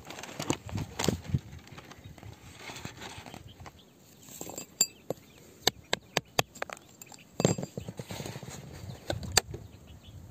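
A metal digging tool probing and scraping in gritty volcanic soil and rock, with a run of sharp taps and clicks in the middle and a couple more knocks near the end.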